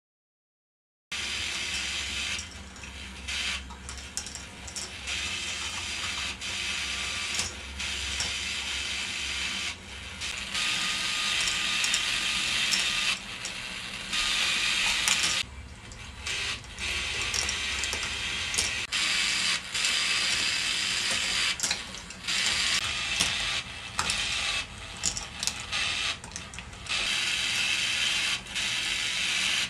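K'nex ball machine running: a continuous clatter of the motor-driven lifts' plastic gears ratcheting, with frequent clicks and rattles of balls on the plastic tracks. It begins after about a second of silence.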